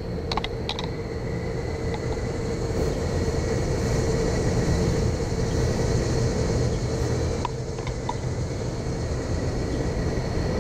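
A steady mechanical hum with a low rumble and a constant tone over it. About half a second in, a few light clicks of a metal spoon against a glass bowl.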